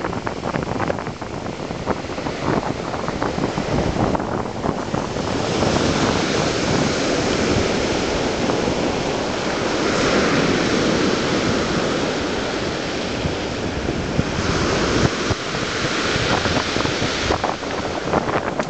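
Surf breaking and washing up a shingle beach in a steady rush that swells louder in two long surges, with wind buffeting the microphone.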